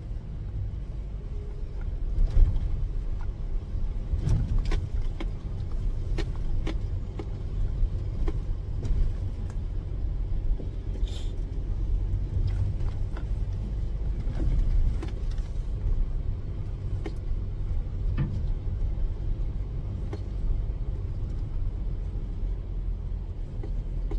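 Car-transporter truck driving slowly, heard from inside its cab: a steady low engine rumble with frequent clicks, knocks and rattles as it rolls over a rough, potholed lane.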